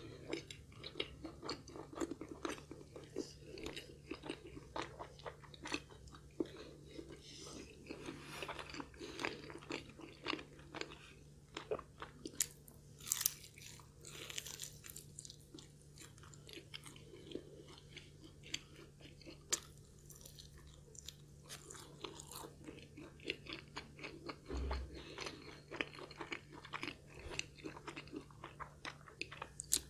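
A person biting and chewing crispy Spicy Mala fried chicken close to the microphone: many small, irregular crunches of the fried coating with chewing between, loudest about halfway through.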